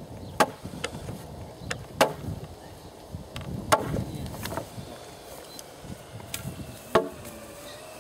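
Hammer blows driving nails into wooden fence rails: irregular sharp strikes, four loud ones among lighter taps, the loudest near the end.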